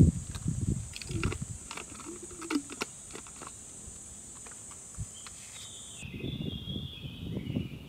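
A steady high-pitched insect drone that cuts off suddenly about six seconds in, with scattered sharp crackles and clicks, low rustling bursts, and a few short high chirps near the end.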